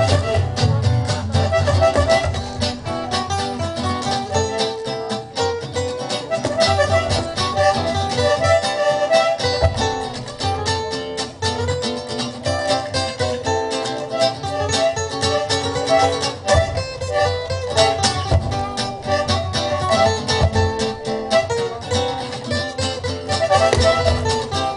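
Two acoustic guitars, an archtop and a flat-top, strumming and picking an instrumental break in a western-swing tune, with held accordion reed notes played by a dog pushing the instrument.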